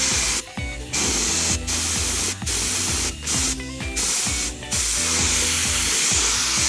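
Gravity-feed spray gun hissing as it sprays epoxy primer. The trigger is pulled in short bursts with brief breaks, then held steadily from about five seconds in.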